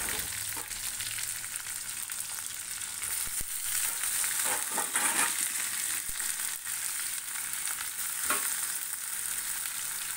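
Potato wedges and other cut vegetables frying in hot oil in a kadai: a steady sizzle, flaring briefly a few times as more pieces go into the pan.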